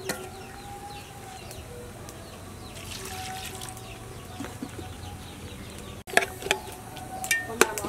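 Sliced bamboo shoots tipped from a metal bowl into an aluminium pot, with chickens clucking and birds calling in the background. From about six seconds in comes a run of sharp metallic clinks against the pot.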